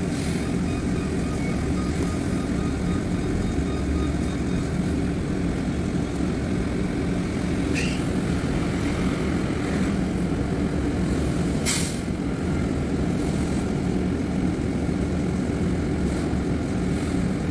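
Flatbed tow truck's engine running steadily while its hydraulic bed, loaded with a car, tilts back down. A short sharp click comes about eight seconds in and a louder clack about twelve seconds in.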